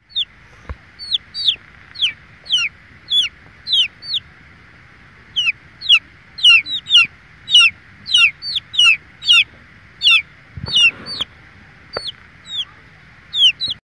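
Young chicks peeping: a run of loud, high, downward-sliding peeps, about two a second, over a steady faint high drone.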